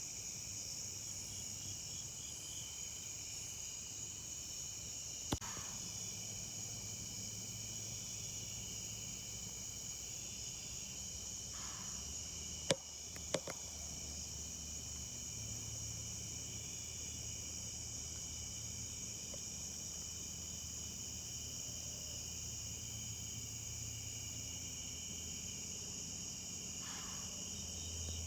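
Steady outdoor chorus of insects trilling in several high, unbroken bands. A few sharp clicks break in, the loudest about halfway through.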